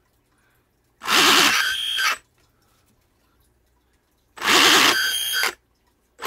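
3D-printed Roots blower spun by a 6,000 kV brushless motor, run up twice in short bursts of about a second each: a loud high-pitched whine with a wavering pitch, building boost pressure.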